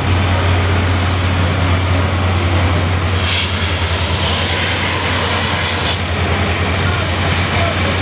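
Heavy diesel engines running steadily, a deep continuous drone with street noise over it, typical of fire engines idling at a fire scene.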